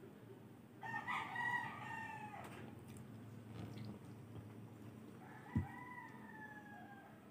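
A rooster crowing twice, faint: one crow about a second in and a second, slightly falling crow about five seconds in. A single sharp knock on the table sounds during the second crow.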